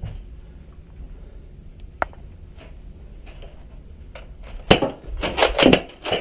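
A low steady rumble with a single sharp click about two seconds in, then a run of loud knocks and clatter near the end.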